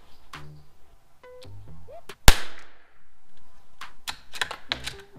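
A single shot from a Ruger Precision Rimfire .22LR bolt-action rifle firing CCI standard-velocity ammunition, about two seconds in, ringing on briefly after the crack. Before and after the shot come quick clicks, the bolt being worked.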